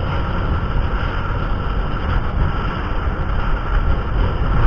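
Steady low rumble of a moving vehicle, engine and road noise with no sharp events.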